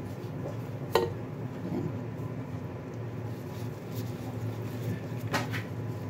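A slotted spatula clacks once on a wooden cutting board about a second in. Then comes soft handling as a cabbage leaf is rolled around rice filling, with a few light clicks near the end, over a steady low hum.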